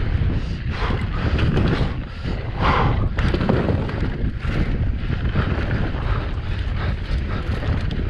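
Mountain bike ridden fast down a dirt trail: wind buffeting the action camera's microphone over the crunch of knobby tyres on loose dirt, with repeated knocks and rattles as the bike hits bumps.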